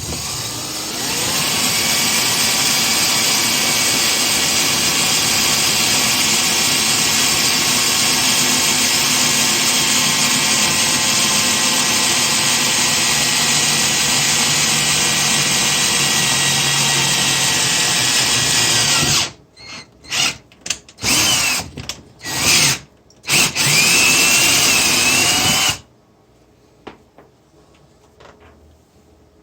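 Electric power drill running steadily for about nineteen seconds, then run in a string of short bursts before it stops.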